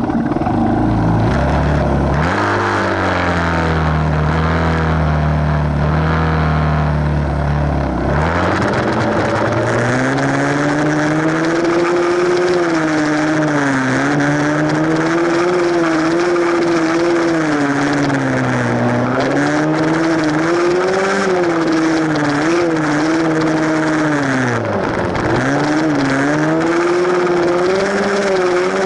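Small four-stroke single-cylinder dirt bike engine being ridden. It holds a steady low pitch for the first several seconds, then revs higher about eight seconds in, and its pitch rises and falls with the throttle. There is a brief drop off the throttle near the end before it picks up again.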